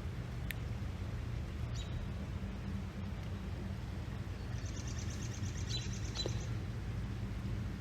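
Outdoor ambience: a steady low rumble, with a few short bird chirps and a quick high trill a little past the middle.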